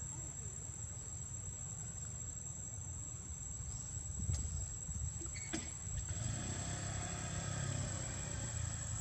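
Outdoor ambience: a steady high insect whine over a low rumble, with two sharp clicks midway; about six seconds in a broader rushing noise comes up and stays.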